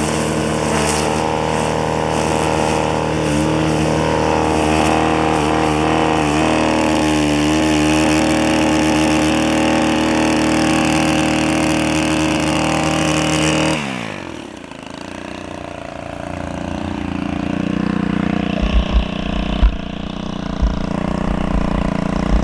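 Gas string trimmer engine running at high revs while cutting grass, its pitch dipping and recovering several times as the throttle is worked. About 14 seconds in the engine drops off and winds down, leaving a low rumble and a few thumps near the end.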